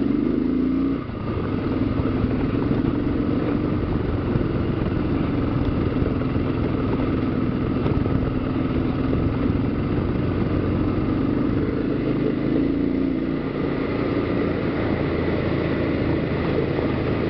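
Kawasaki KLR650's single-cylinder engine running steadily as the motorcycle rides along a gravel track, with a brief dip in engine sound about a second in.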